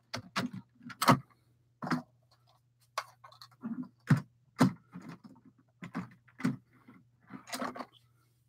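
Irregular plastic clicks and clacks of LEGO train carriages being handled by hand, set down on plastic track and coupled together, about a dozen sharp knocks spread unevenly, over a faint low steady hum.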